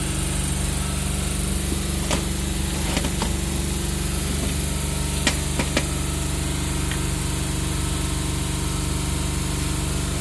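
An engine running with a steady, even hum, over which come several sharp metal clinks as the dismantled hydraulic control valve block and steel rods are handled, a quick run of three a little past halfway.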